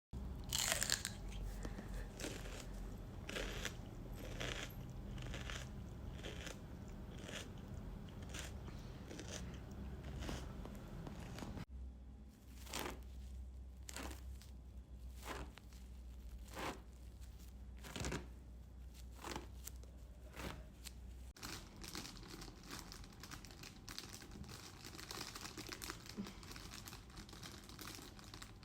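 A run of short, sharp crunches, roughly one to two a second, recorded as a Foley effect. The background changes abruptly twice, about twelve and about twenty-one seconds in, as if three takes were joined.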